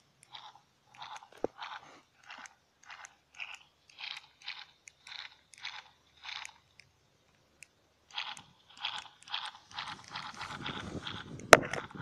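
Footsteps crunching on dry dirt and leaf litter, about two to three steps a second, with a short pause midway. A single sharp knock comes near the end.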